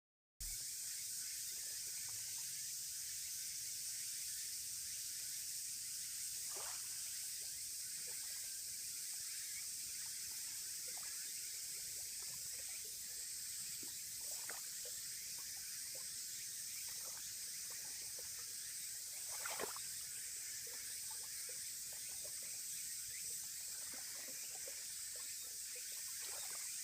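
Steady high-pitched hiss with a few faint ticks and knocks scattered through it, about 6 s and 20 s in.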